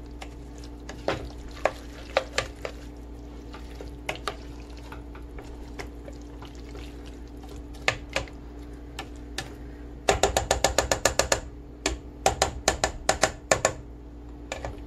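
Spoon stirring chopped vegetables in a stainless steel pot: scattered scrapes and knocks against the pot, then two quick runs of rapid tapping about ten seconds in, as the spoon works at the corn. A steady low hum runs underneath.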